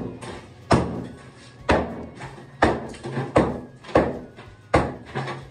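Ball-peen hammer striking a tiled shower wall of hard plaster over wire lath, breaking it up. Six heavy blows about a second apart.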